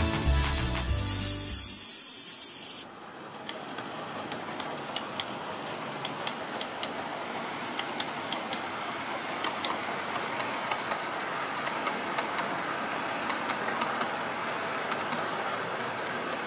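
Background music cuts off about three seconds in. Then an OO gauge model train runs on the layout track: a steady hiss of running with frequent light clicks.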